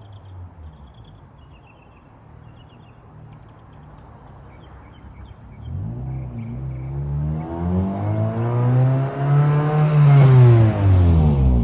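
1996 Acura Integra GSR's 1.8-litre DOHC VTEC four-cylinder through a newly fitted cat-back exhaust: a low rumble at first, then from about halfway the engine note climbs in pitch and loudness to a peak near the end before dropping away.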